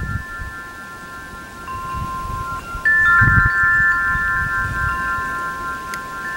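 Wind chimes ringing: several clear, held tones overlapping, with a louder set of notes coming in about three seconds in, over a low rumble underneath.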